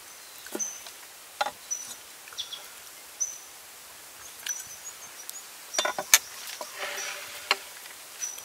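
Knocks of a steel cleaver chopping roast chicken on a wooden board, then clinks and knocks as a ceramic plate and food are handled on the wooden table, the loudest cluster about six seconds in with a brief ring. A short high call repeats about once a second in the background.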